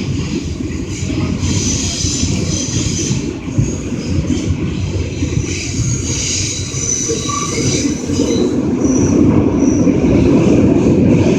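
New York City subway train running, heard from inside the car: a steady rumble of wheels on the rails with a high-pitched wheel squeal over it, growing louder near the end.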